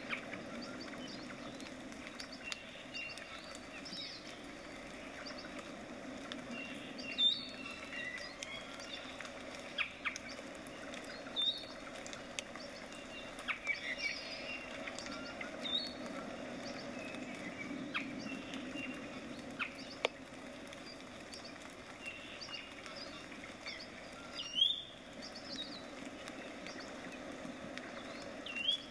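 A small paintbrush stroking and dabbing acrylic paint onto a stretched canvas: short scratchy brush strokes with small squeaks and taps at irregular intervals, the loudest about seven and twenty-five seconds in.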